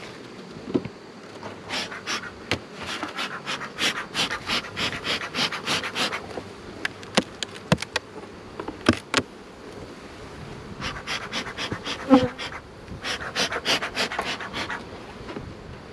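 Beekeeper's bellows smoker puffing in two runs of quick hissing strokes, about four a second, to calm the bees, over the steady buzzing of honeybees at an open hive. Between the runs come a few sharp knocks as the hive lid is taken off.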